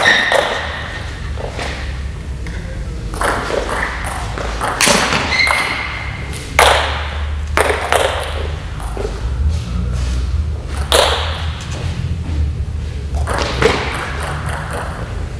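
Table tennis rally: the celluloid ball clicking sharply off the table and the players' paddles, stroke after stroke, in a large hall.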